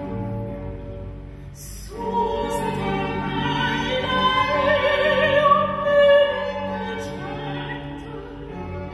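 Classical music: sustained string chords, joined about two seconds in by an operatic voice singing long held notes with vibrato.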